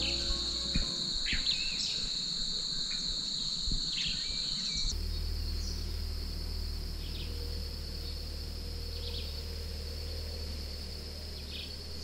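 A steady, high-pitched chorus of insects buzzing continuously, with short bird chirps now and then. The insect tone shifts slightly higher about five seconds in.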